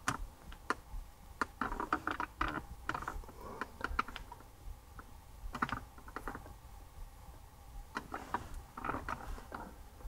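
Irregular small clicks and taps, in clusters, from fingers tapping and handling a handheld XTOOL D8 scan tool's touchscreen tablet, over a faint steady hum.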